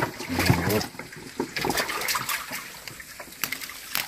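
Hands splashing and sloshing in shallow muddy water: a run of short, irregular splashes and drips.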